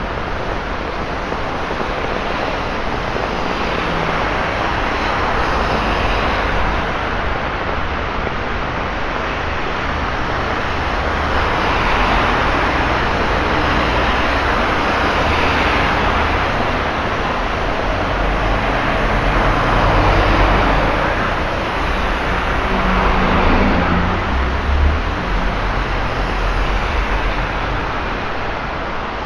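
Road traffic on a flooded, rain-soaked street, with tyres hissing through standing water. Several vehicles pass one after another, each swelling and fading, the loudest about twenty seconds in, over a low engine rumble.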